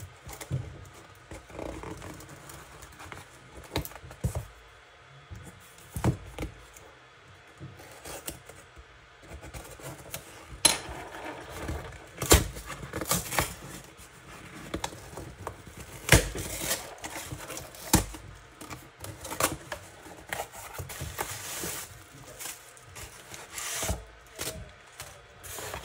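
A cardboard shipping box being cut open with a hobby knife and unpacked: scattered knocks, scrapes and clicks of the knife and box, then crumpled kraft packing paper and plastic rustling near the end.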